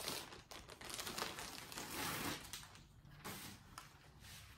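A packaging bag being opened and handled, with irregular crinkling and rustling that is busiest in the first couple of seconds and quieter after.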